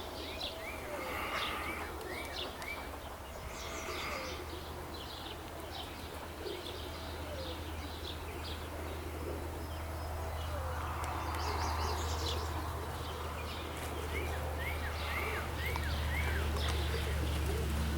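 Small birds chirping and calling in short rising notes, in clusters, over a steady low rumble of outdoor background noise.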